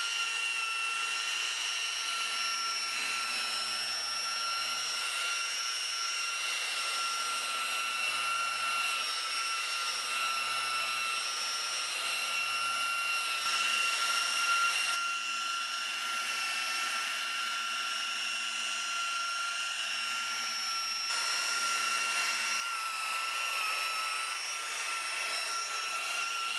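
A steady high-pitched mechanical whine over a hiss, holding one pitch and wavering briefly about four-fifths of the way through.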